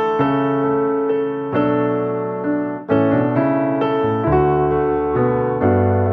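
Background music on piano, new chords struck about every second and a half.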